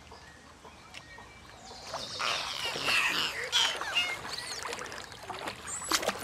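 Water splashing as a dolphin rises upright in the pool, starting about two seconds in, with short dolphin whistles among the splashes and a sharp rising whistle near the end.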